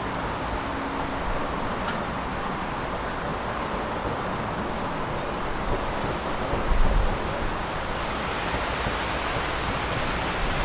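Steady, even rush of outdoor ambient noise, with a short low gust of wind on the microphone about two-thirds of the way through.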